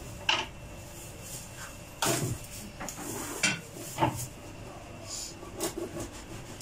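Dishes and cutlery being handled on a kitchen counter: a few scattered clinks and knocks, the strongest about two seconds in and again around three and a half to four seconds.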